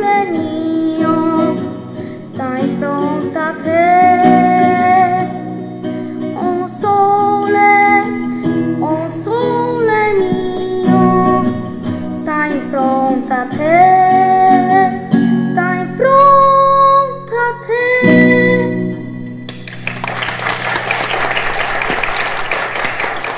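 A boy sings a solo song into a microphone over an instrumental accompaniment; about twenty seconds in the song ends and the audience applauds.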